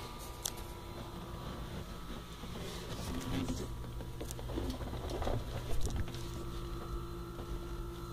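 Steady low machinery hum with scattered clicks and rustling from handling close to the microphone.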